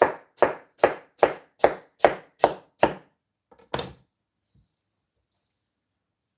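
Kitchen knife chopping peeled watermelon into chunks on a cutting board: eight quick, even strokes, about two and a half a second, then one more after a short pause.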